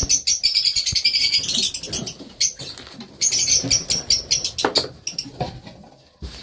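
A group of small pet parrots, Fischer's lovebirds and budgerigars, chattering in rapid high, squeaky chirps, busiest at first and thinning out toward the end, with a few soft knocks among them.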